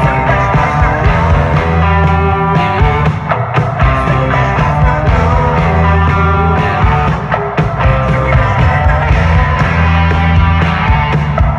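A live band playing loud music with a heavy bass line and sustained chords.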